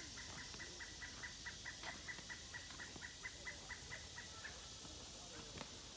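A faint animal call: a fast, even series of short clucking notes, about five a second, that stops about four and a half seconds in.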